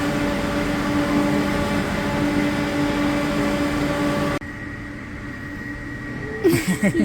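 Steady running noise of a passenger train heard from inside the carriage, with a constant humming drone. About four seconds in it cuts abruptly to a quieter background with a thin high tone, and a voice breaks in near the end.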